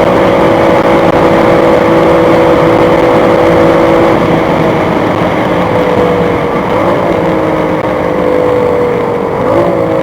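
BMW M3 F80's twin-turbo straight-six engine running hard at high revs, its pitch held steady. About four seconds in the pitch begins slowly falling as the car comes off its top-speed run, with two brief rises in pitch along the way, near seven and nine and a half seconds.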